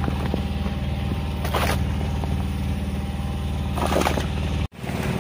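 Small boat engine idling steadily with a low, even firing hum, and two brief splash-like rushes of noise from the water. It cuts off suddenly near the end.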